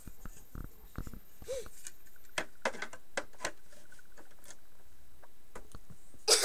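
Scattered clicks and light knocks of plastic toy house pieces being handled and moved, with a louder burst of noise right at the end.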